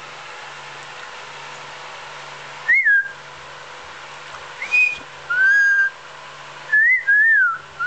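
Pet bird whistling: five clear whistled notes that rise and fall in pitch, starting a little under three seconds in, some short and some held for about half a second. A low steady hum runs underneath.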